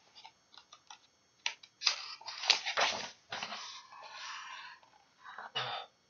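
Paper pages of a hardcover picture book rustling and flapping as a page is turned by hand, in a few short bursts with small handling clicks before them.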